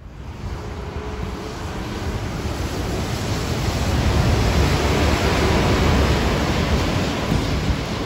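A city bus approaching and passing close, its engine and tyre noise building over about four seconds into a loud, steady rumble with hiss.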